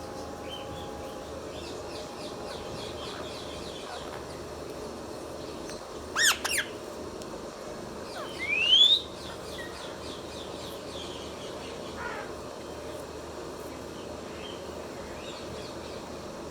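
Indian ringneck parakeet calling: two short, sharp squawks about six seconds in, then a louder rising whistle about two seconds later. Faint chirping continues in the background.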